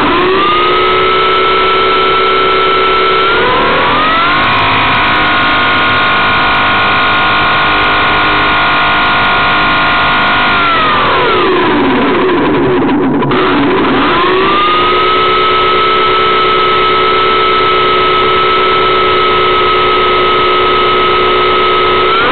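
Electric motor and propeller of a Dynam Pitts Python RC biplane running on the ground, a loud whine that follows the throttle. It rises in pitch about half a second in and steps higher around four seconds, holds steady, then falls away around eleven seconds. A little after fourteen seconds it climbs again and holds.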